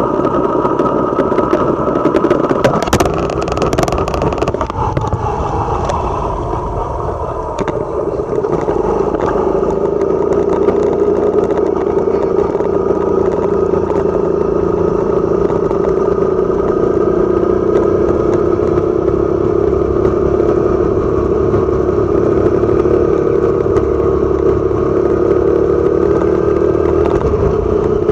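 Motorcycle engine running steadily while riding along the road, with a few sharp clattering knocks about three to four seconds in.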